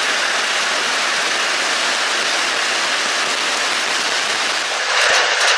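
Heavy rain falling steadily onto the water of an open concrete fish pond, an even hiss of countless drops splashing on the surface. The hiss changes abruptly about five seconds in.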